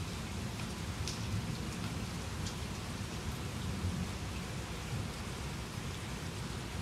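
Steady heavy rain falling, with a low rumble underneath and a couple of sharp drip ticks about one and two and a half seconds in.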